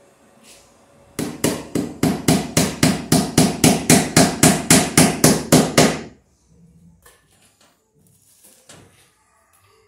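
Claw hammer striking overhead into a wooden floor joist, about twenty quick blows at roughly four a second, driving in a fastener; the blows stop about six seconds in, followed by faint handling noises.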